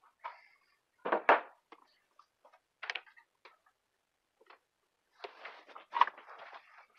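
Scattered clicks and knocks of electrical plugs and cords being handled, with two louder knocks about a second in, then a stretch of rustling and shuffling with a sharp knock near the end.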